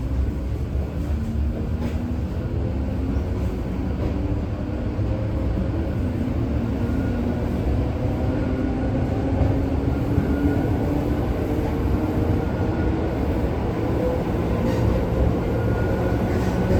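ED4M electric train pulling away and gathering speed: steady rumble with a motor hum that rises slowly in pitch as it accelerates.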